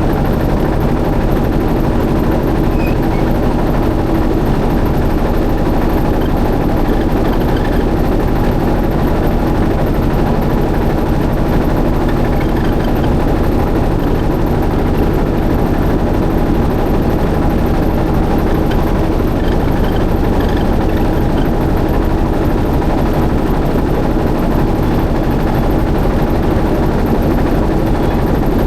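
A motorboat's engine running steadily, heard from aboard the boat as a continuous even drone.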